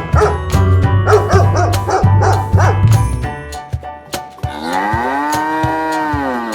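A dog barking repeatedly over background music, then a cow's single long moo, rising and then falling in pitch, beginning about four and a half seconds in.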